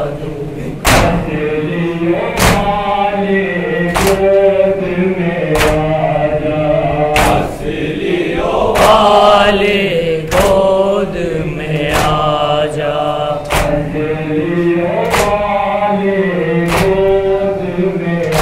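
Group of Shia mourners chanting a noha in unison, with loud collective chest-beating (matam) strikes landing together about every one and a half seconds.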